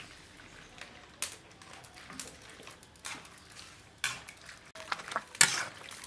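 Metal tongs clinking and scraping against a wok while sliced red peppers are tipped in and stirred in hot liquid. There are a few separate sharp clatters, the loudest near the end.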